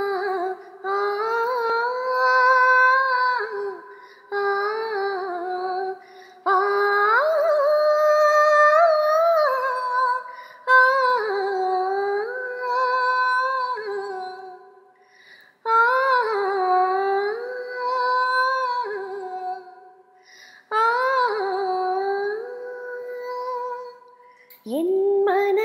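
A woman's unaccompanied voice singing a slow melody without words, in Carnatic style. It moves in phrases of a few seconds, with long held notes bent by sliding, wavering ornaments and brief pauses for breath between phrases.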